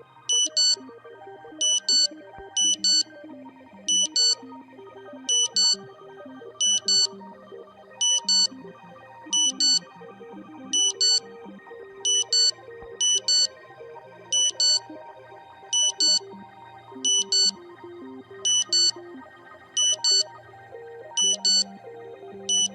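Mock emergency alert system alarm: loud, high-pitched beeps in quick pairs, repeating evenly about every second and a half, over quieter synthesized background music with a low drone.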